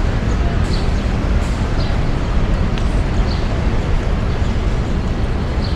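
Steady rumble of city street traffic, with a few brief, faint high chirps of small birds scattered through it.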